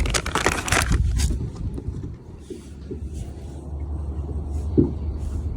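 Wind buffeting the microphone as a steady low rumble, after a quick flurry of clicks and rattles in the first second; a single knock near the end.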